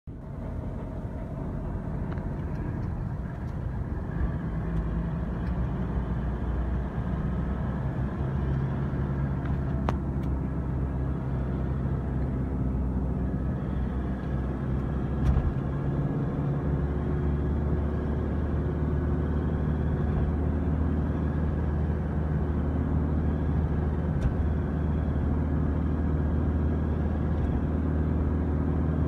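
Car engine and tyre noise heard from inside the cabin while driving, with a steady low hum that builds over the first few seconds as the car picks up speed. A few brief clicks stand out, the loudest about halfway through.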